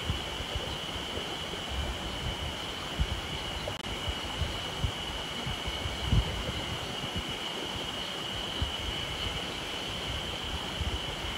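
Mountain stream running over rocks in a steady rush, with a constant high-pitched hum above it and irregular low thumps, the loudest about six seconds in.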